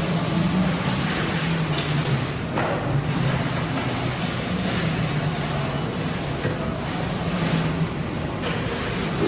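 Woodworking machinery running steadily: a continuous hiss over a low hum, with no pause.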